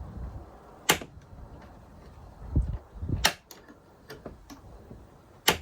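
Rekeyed Schlage deadbolt being tested, its bolt snapping over with three sharp metallic clicks about two seconds apart, with a couple of dull knocks of the lock being handled in between.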